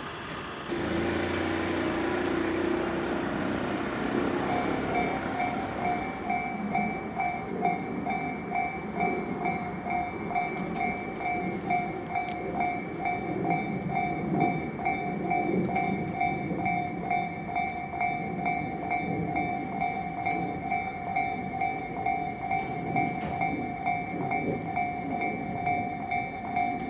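Japanese railroad crossing warning bell ringing in an even, rapid two-tone pulse from about four seconds in, over the rumble of a passing train.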